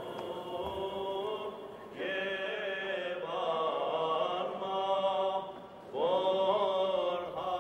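Sung chant: voices holding long, slow notes, with new phrases coming in about two, three and six seconds in.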